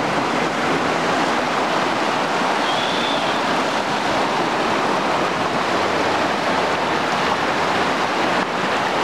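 River in flood rushing and churning: a loud, steady wash of fast muddy water. A brief high whistle sounds about three seconds in.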